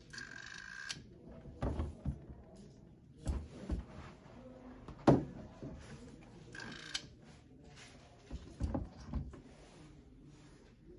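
Stainless steel electric grain mill being handled and twisted by hand: a series of light metal clunks and knocks, the sharpest about five seconds in, with two brief squealing scrapes of metal turning against metal, at the start and a little past halfway.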